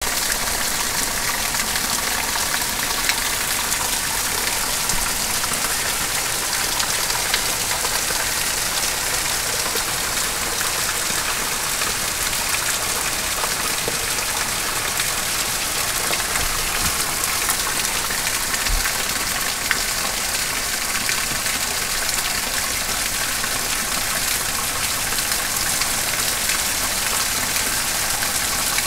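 Heavy tropical-storm rain pouring down, a dense, steady hiss that does not let up.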